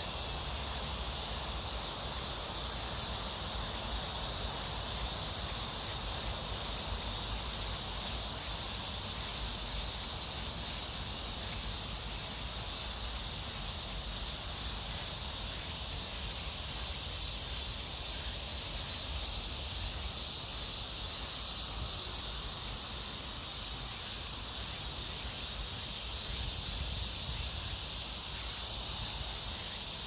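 Steady chorus of summer insects buzzing in two high pitches, one high and one much higher, without a break.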